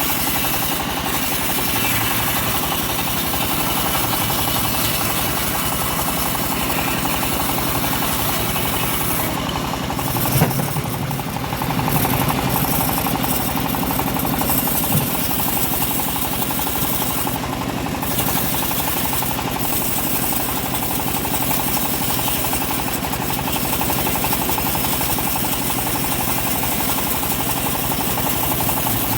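Engine-driven home-built bandsaw running steadily while sawing an old teak log, with a brief knock about ten seconds in.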